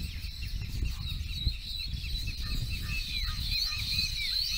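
A colony of baya weavers chattering while they build their nests: many short, high chirps overlapping without a break.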